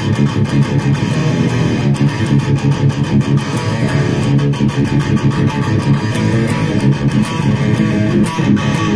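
ESP LTD MH-100QMNT electric guitar played in quick, continuous picked riffing. The strings sit high off the fretboard because the neck is bowed.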